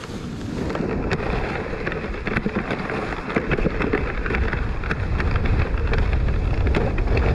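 A sled sliding fast over packed snow: a steady scraping rush dotted with many small clicks and knocks, getting louder as it picks up speed, with wind buffeting the microphone.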